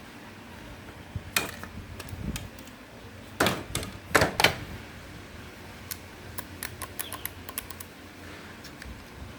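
Sharp clicks and knocks of small hard parts being handled, with a few louder knocks in the middle followed by a quick run of lighter clicks.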